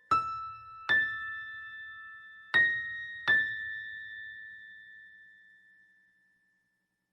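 Four high, bell-like notes struck one after another, each ringing on and slowly dying away; the last fades to silence about six seconds in.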